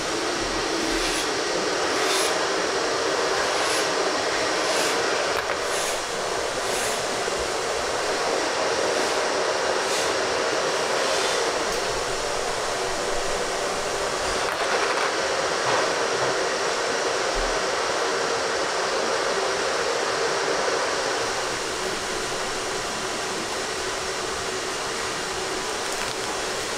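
Steady rushing roar of a commercial kitchen's ventilation, with a few light clicks from handling in the first ten seconds or so.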